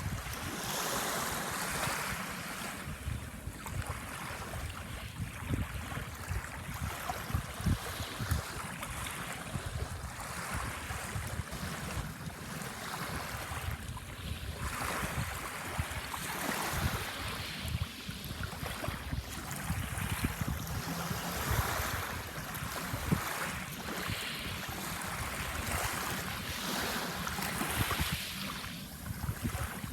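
Small waves washing onto a sandbar, the wash swelling and easing every few seconds, with wind buffeting the microphone in a low rumble underneath.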